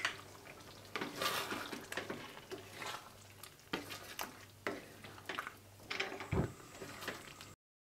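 Wooden spatula stirring chicken in a wet yogurt-and-tomato sauce in a wok over high heat: irregular scrapes and knocks against the pan. The sound cuts off abruptly near the end.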